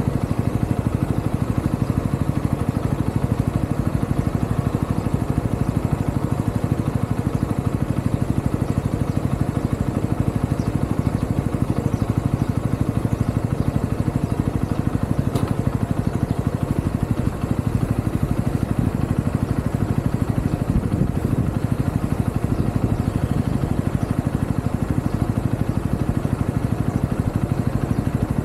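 UM Renegade Commando 125 motorcycle's 125 cc engine running steadily under way, heard from a handlebar-mounted camera.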